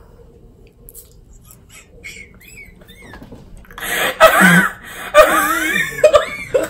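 A woman bursts into loud, high-pitched laughter about four seconds in, in a few breathless peals one after another.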